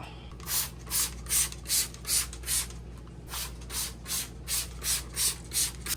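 Trigger spray bottle of vinegar and water squirting over and over onto a fridge surface: about a dozen quick hissing sprays, a brief pause near the middle.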